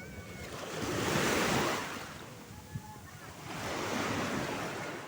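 Sea waves washing in twice, each swell of surf rising and then fading.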